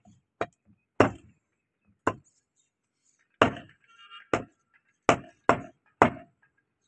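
Meat cleaver chopping beef on a wooden log chopping block: a series of sharp thwacks at an uneven pace, coming closer together near the end.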